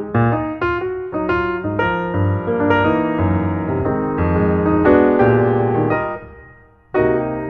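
Background piano music: a melody over sustained bass notes, fading out about six seconds in before a new phrase begins near the end.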